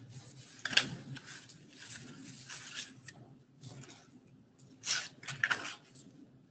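Irregular rustling and rubbing noises close to the microphone, several short bursts, the loudest about a second in and again near the end.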